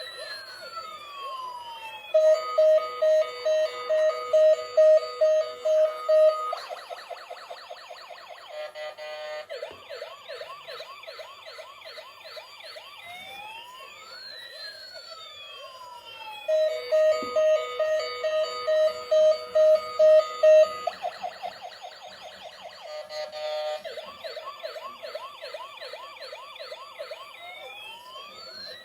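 Toy police van's electronic siren cycling through its tones: crossing rising and falling wails, then loud pulsed beeping about two a second, then a fast warble. The sequence starts over about halfway through.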